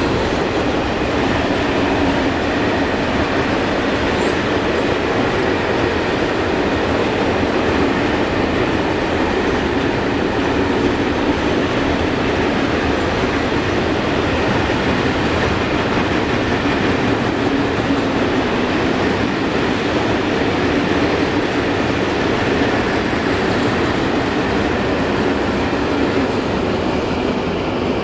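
Freight train of loaded open wagons rolling past, a steady noise of steel wheels on the rails. It eases slightly near the end as the last wagons go by.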